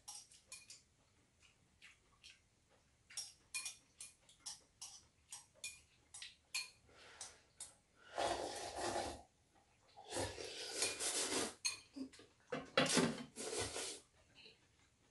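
People eating ramen: short clicks and taps of chopsticks against bowls, then three long noisy slurps of noodles and broth about eight, ten and thirteen seconds in, the loudest sounds in the stretch.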